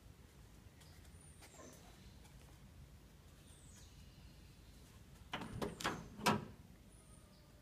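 Faint high bird chirps in the background, then a quick run of three or four sharp clunks a little past the middle, the last one the loudest.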